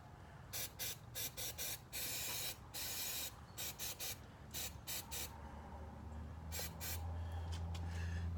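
Aerosol can of cleaner sprayed onto a mass airflow sensor's hot-wire element to clean it. It gives a string of short hissing blasts and two longer ones of about half a second each.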